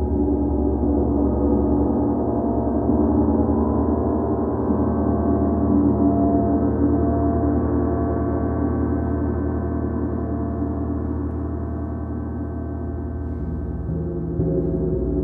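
Several Paiste Bronze gongs played together with soft-headed mallets, their overlapping tones ringing on in a dense, sustained wash. A fresh stroke on a lower gong swells the sound again near the end.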